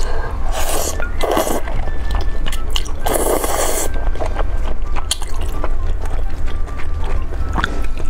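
Thick noodles in sauce slurped into the mouth in several noisy bursts, the longest about three seconds in, with wet chewing between, over background music.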